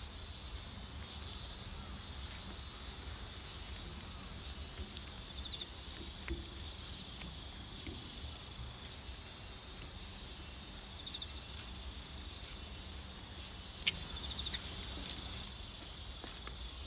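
Crickets chirping steadily in a chorus of repeated high pulsing trills, over a low rumble. One sharp click stands out near the end.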